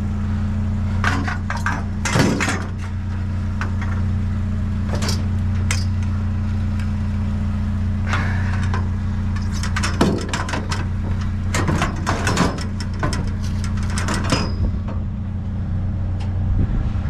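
Steady hum of an idling truck engine, with repeated knocks and clanks as pool ladder pieces and sticks are handled and loaded onto the truck. The knocking comes thickest about ten to fourteen seconds in.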